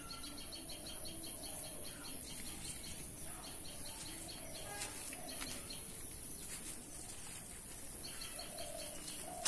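Faint outdoor birdsong: quick runs of high repeated chirps near the start and again near the end, over a steady high hiss.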